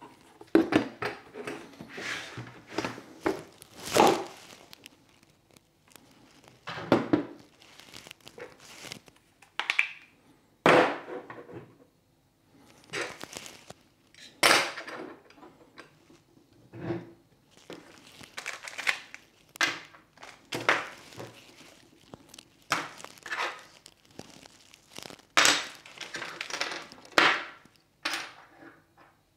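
Hands unpacking a DJI RSC2 camera gimbal and its accessories: a string of short knocks as hard parts are set down on a wooden table, with rustling of packaging in between.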